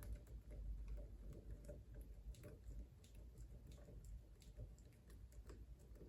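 Faint, irregular small clicks and ticks of hand work on a wiring board, as wires and tools are handled at the terminals, over a low steady hum.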